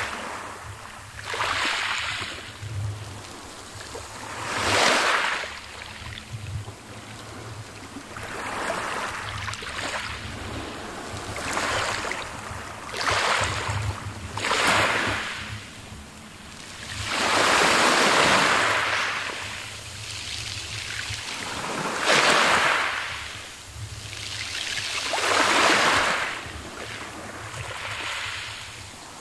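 Small sea waves breaking and washing up a pebble beach, a hissing surge every few seconds that swells and fades; the longest and loudest comes a little after halfway.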